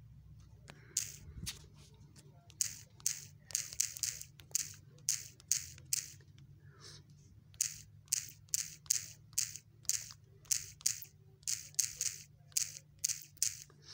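Typing on a smartphone's on-screen keyboard: a quick, irregular run of short taps, about two dozen in all, with a brief pause partway through.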